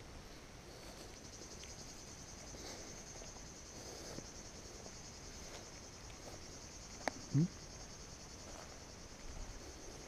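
A steady, high-pitched chorus of insects chirring with a fast pulsing rhythm. About seven seconds in there is a sharp click, followed at once by a brief low sound rising in pitch.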